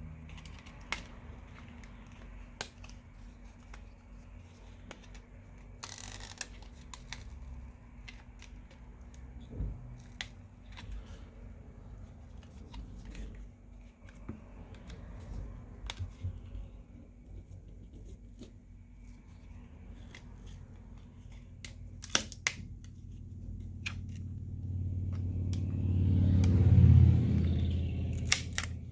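A plastic opening pick sliding and clicking around the edge of a smartphone's glued back cover, with small scraping and tearing sounds as the adhesive lets go. A louder swelling handling noise builds near the end.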